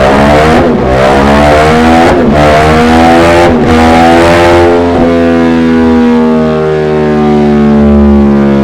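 Ducati XDiavel 1260 S's Testastretta V-twin running loud at high revs through a Dominator HP5 aftermarket muffler. The pitch dips briefly four times, about every second and a half, then the engine holds high revs and climbs slowly.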